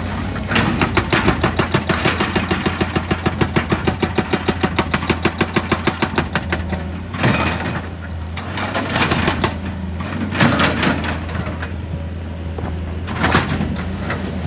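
An excavator's engine runs steadily under a rapid, even train of hammer blows on rock, about eight a second, for the first six seconds or so. After that come several separate loud crunches and scrapes of rock.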